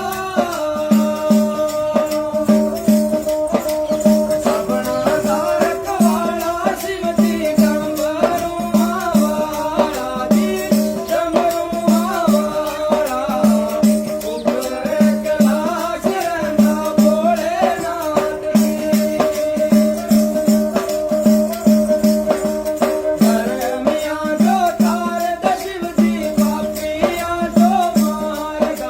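Indian folk-style instrumental music: a wavering melody over a steady drone, a low note pulsing on a regular beat, and rattling percussion.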